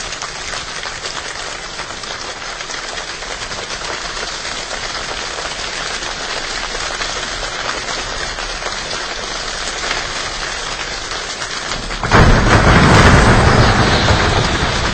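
Made-up rain sound: a dense, even patter that slowly builds, then about twelve seconds in a sudden much louder surge with a deep rumble, like a downpour with thunder.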